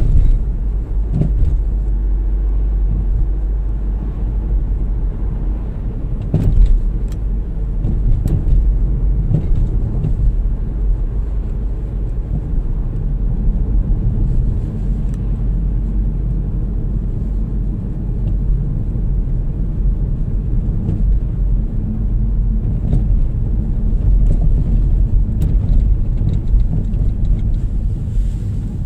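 Steady low rumble of engine and tyre noise inside a moving car's cabin, with a few short knocks, the loudest about six and a half seconds in.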